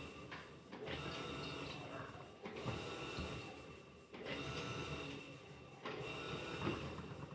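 Electrolux LTC15 top-loading washing machine agitating: the motor whirs through a stroke, stops briefly and starts again about every second and a half to two seconds, with sloshing water and a steady motor whine.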